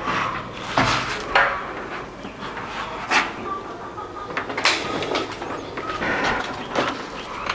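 Aluminum-framed glass sliding-door panel knocking and clattering as it is lifted up out of its track and carried off, several separate knocks spread through.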